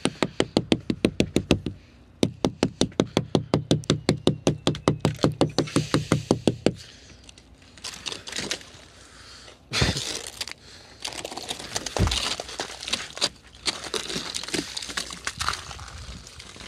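Rapid, even knocking on a thick ice glaze coating car glass, about six knocks a second, with a short break near two seconds, stopping about seven seconds in. Then crunching and scraping as the ice cracks and breaks away in small cubes and chunks, with two heavier thumps around ten and twelve seconds.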